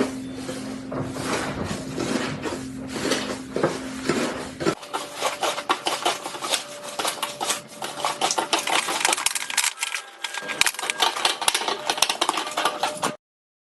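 Slime being squeezed and pressed by hand, making dense sticky clicks, crackles and pops. The sound changes about five seconds in to faster, sharper popping, then stops abruptly near the end.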